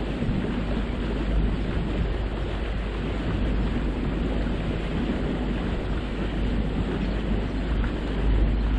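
Steady wind buffeting the microphone over the rush of water along the hull of a boat under way.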